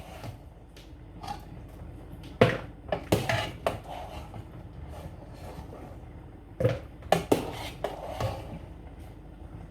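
A metal utensil knocking and clinking against a cooking pot as boiled chicken feet are lifted out, in scattered clusters of knocks.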